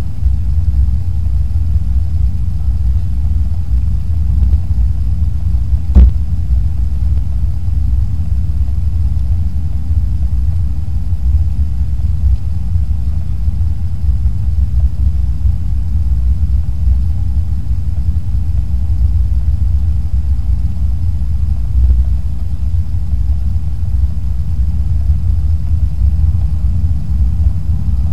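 Steady low rumble of engine and airflow noise inside the cabin of a Boeing 737-800 on final approach, heard from a window seat over the wing, with a faint high whine above it. A single sharp knock sounds about six seconds in.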